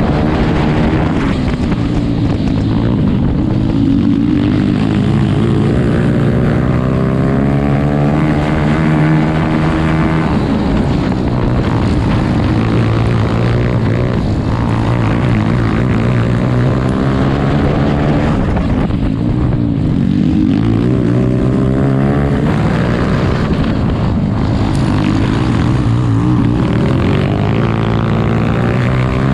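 Grass kart engine running hard at racing speed, its revs rising and falling several times as the kart slows for corners and accelerates out again.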